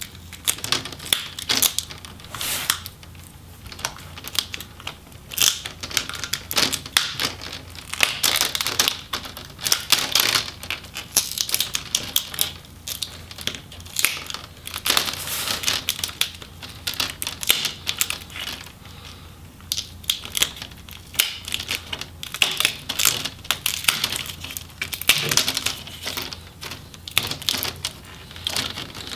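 Plastic display bezel of an MSI GL62M laptop being pried off by hand. Many irregular clicks and crackles come from the plastic flexing and the bottom adhesive strip letting go.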